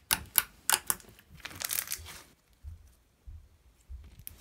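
Glossy slime with sprinkles being pressed and squeezed by hand, giving a run of sharp clicks and crackles for about two seconds. It then goes much quieter as the slime is lifted and stretched.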